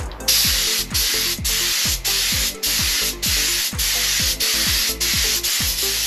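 Compressed-air gravity-feed paint spray gun hissing as it sprays paint onto an alloy wheel. The hiss starts about a quarter second in and cuts out very briefly about every half second.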